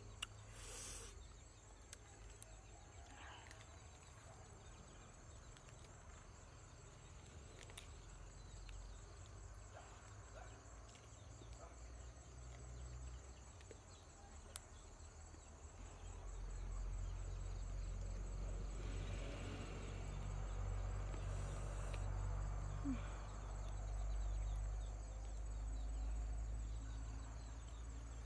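Steady, high pulsing insect trill over faint rustling of lettuce leaves being folded by hand. Partway through, a low rumble rises and stays to the end.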